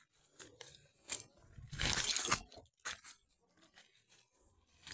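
Crunching and rustling from a crab lift net (bintol) being handled among dry brush and leaves, with a few short sharp clicks; the loudest crunch comes about two seconds in.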